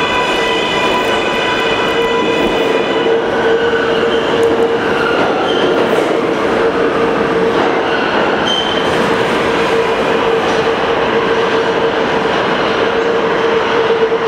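R188 subway train on the 7 line pulling away from the platform into the tunnel: a steady rumble of wheels on rail, with a motor whine of several pitched tones that stops about three seconds in and a few short wheel squeals after it.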